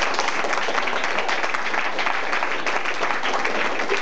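Audience applauding steadily, a dense run of many hands clapping.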